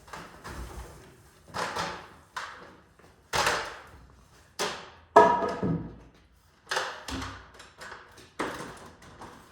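A string of separate knocks and clunks, about one a second, from things being handled and set down while framing; the loudest, about five seconds in, rings briefly like struck metal.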